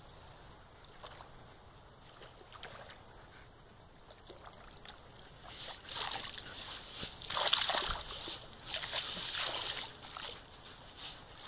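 German Shepherd digging in wet sand with its front paws: repeated scraping and flinging of sand, faint at first and louder and busier from about halfway through.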